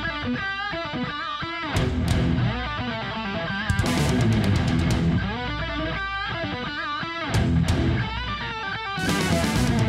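Background rock music led by electric guitar, with bass and a steady low end.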